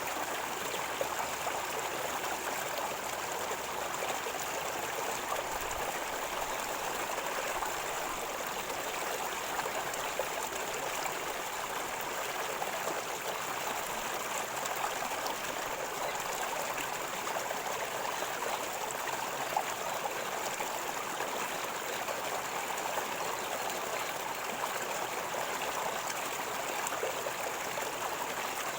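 River water flowing with a steady gurgling rush, unchanging throughout.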